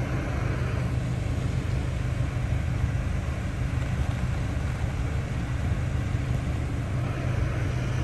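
Steady low rumble of a car's engine heard from inside the cabin.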